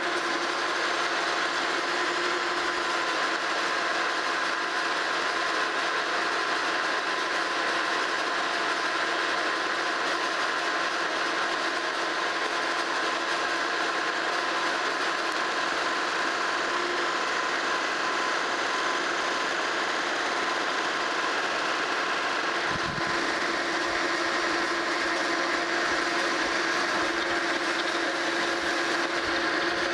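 Monarch Model K metal lathe running steadily, its gear train humming, while the cutting tool takes a roughing cut along the spinning arbor shaft to bring its diameter down. A single short knock comes about three-quarters of the way through.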